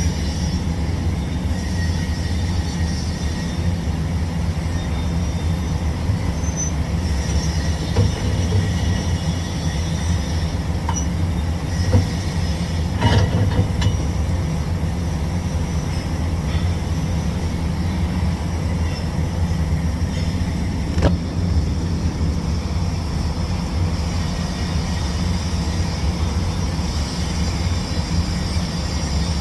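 Steady low mechanical drone with a few short clicks scattered through it.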